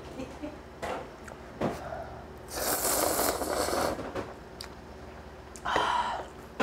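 Ramen noodles and broth slurped from a bowl: one long, loud slurp about two and a half seconds in, lasting over a second. A shorter breathy sound follows near the end, with a few faint clicks between.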